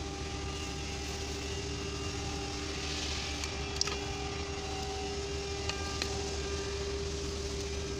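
A steady mechanical hum holding a constant tone, with a few light clicks about four and six seconds in.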